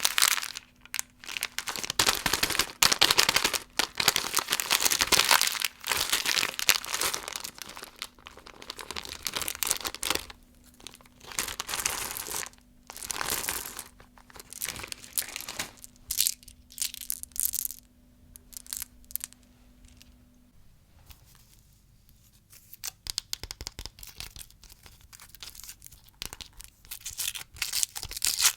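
Plastic candy wrappers crinkling and tearing as candy is unwrapped, in irregular bursts of close rustling and crackling with short pauses between.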